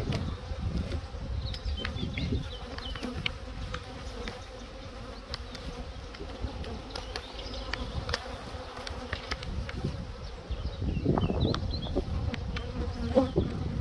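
A honeybee colony buzzing steadily over an open hive, with scattered light knocks of a metal hive tool against the wooden frames. About eleven seconds in, a brood frame is pried up and lifted out.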